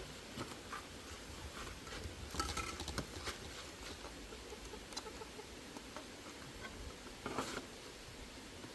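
Scattered light clicks and rustles of things being handled, with a short cluster of louder taps about two and a half seconds in and another near the end.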